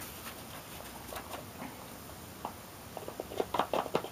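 Folded paper being shaken and tapped to slide loose gunpowder into a funnel: a faint patter of grains, then a run of light taps starting about three seconds in and getting louder near the end.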